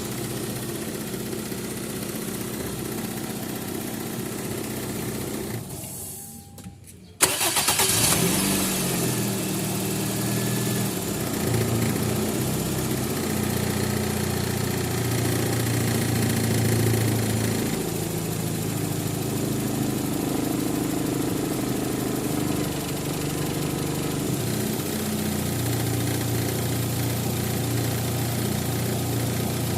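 Toyota Corolla engine idling, then switched off about six seconds in; about a second later it is restarted and catches almost at once, flares up briefly in pitch and settles back to a steady idle. The quick start shows the car's hard-starting fault cured after the distributor was replaced.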